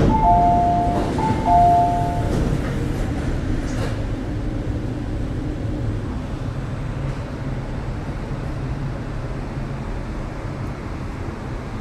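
An electronic two-note chime sounds twice just after the start. Underneath, an MTR East Rail Line R-train electric multiple unit runs through the tunnel with a steady low rumble, heard from inside the car.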